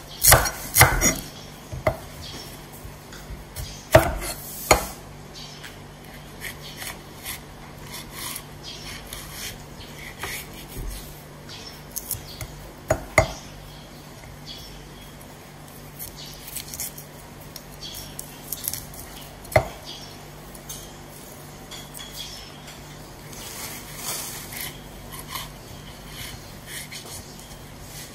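Steel cleaver knocking on a wooden cutting board at irregular intervals as herbs are chopped and chillies are sliced, a few strokes much louder than the rest, with softer taps and scrapes of the blade between them.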